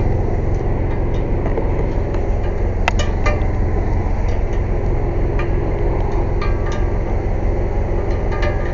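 Air compressor running with a steady low drone, over scattered metallic clinks and clicks from tire tools and hardware, including one sharp click about three seconds in.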